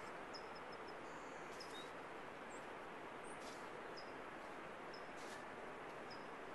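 Faint steady rush of distant ocean surf, with short high bird chirps repeating about once a second.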